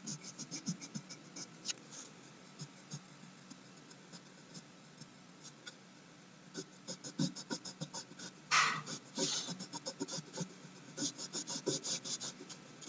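Blue crayon scratching back and forth on a paper worksheet, colouring in a number 3, in quick runs of short strokes that thin out for a few seconds and pick up again after about six seconds. About eight and a half seconds in comes a louder brushing rustle against the paper.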